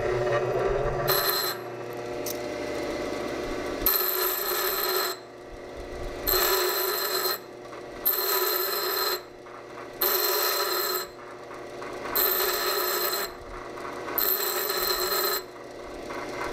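Delta bench grinder running while the tip of a stainless steel lag bolt is pressed against the wheel in short passes about every two seconds, each pass adding a high grinding whine. The threaded end is being tapered and rounded off.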